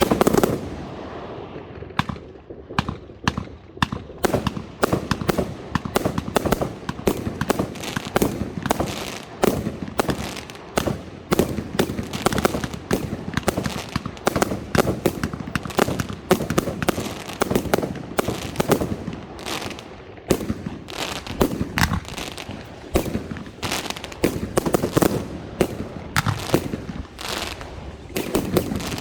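Professional-grade (category F4) fireworks going off: a dense, irregular barrage of sharp bangs and crackles, several per second, with louder clusters about halfway through and again near the end.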